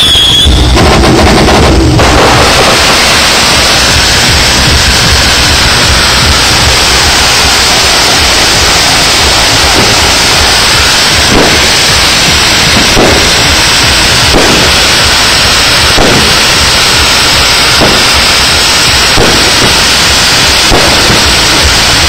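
Consumer display fireworks going off: a loud, continuous rush of noise, overloading the microphone, with sharp bangs about every one and a half seconds in the second half.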